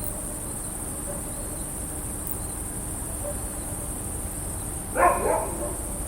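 Night ambience of crickets chirping in a steady, high band. A single distant dog bark comes about five seconds in.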